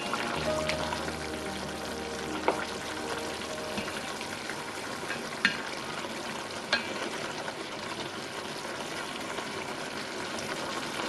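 Soy braising liquid with canned saury simmering and bubbling in a stainless steel pot, boiled down to a thick sauce, while a wooden spatula stirs it, with a few light clicks against the pot.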